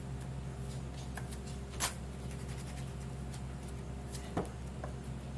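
Faint rustling and pressing as rice-flour dough is pinched into balls by hand, with a light tap as a dough ball is set down on a tray about two seconds in and a smaller tap near the end, over a steady low room hum.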